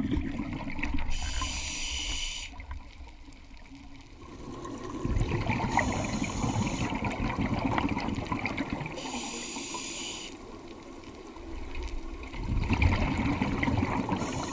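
Scuba diver breathing through a regulator underwater: a short hissing inhale followed by a longer bubbling exhale, repeating about every four seconds, three full breaths.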